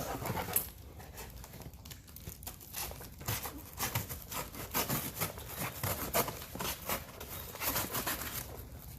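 Shipping package being torn open by hand: a steady run of tearing, crinkling and rustling of packaging.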